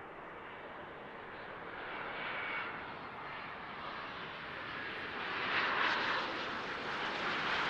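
Mitsubishi CRJ-702ER regional jet flaring to land, the hiss and faint whine of its two rear-mounted turbofan engines growing louder as it comes close, loudest about two-thirds of the way through.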